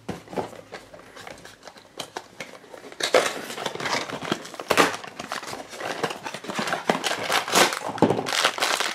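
Opening a Funko Mystery Minis blind box: light taps and scrapes of the cardboard box at first, then from about three seconds in a denser rustling and crinkling as the box flaps are pulled open and the foil bag inside is handled.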